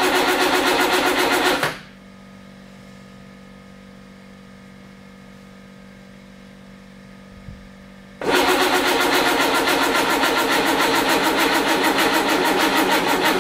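Ford Model Y's sidevalve four-cylinder engine turned over by its starter motor without firing, in two long spells of cranking with a pause of about six seconds between them. The engine will not catch because no fuel is reaching the carburettor, which is put down to a faulty fuel pump.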